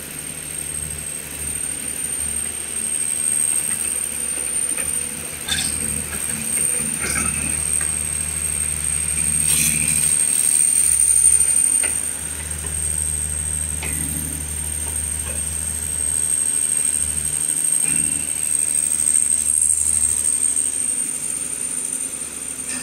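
A steady high-pitched whine over a low machine hum, with a few clinks and knocks from hand work on the generator engine's filters.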